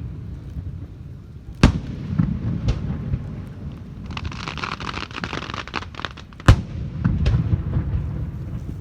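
Fireworks going off: a few sharp bangs with a low rumble between them, the loudest about two-thirds of the way in, and a dense burst of crackling for about two seconds in the middle.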